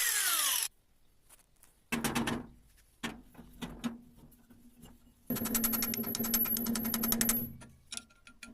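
A power tool winding down with a falling whine. After a pause and a short burst, a motor-driven tool runs for about two seconds with a fast, even clatter over a steady hum.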